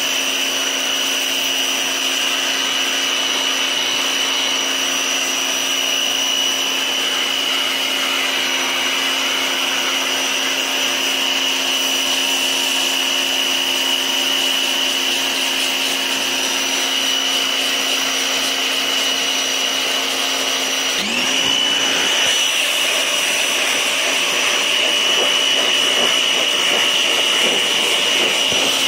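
Simoniz 1650 PSI compact electric pressure washer running, a steady motor-and-pump whine over the hiss of its water spray. About two-thirds of the way through, the whine dips and climbs back.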